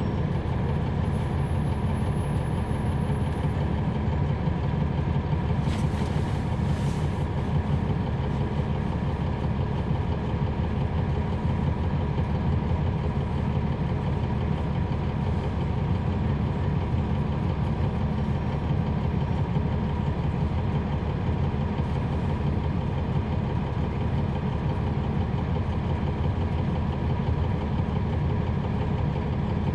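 Cummins ISL9 inline-six diesel engine of a 2011 NABI 40-SFW transit bus, heard from on board, running steadily at an unchanging speed as at idle. A short hiss comes about six seconds in.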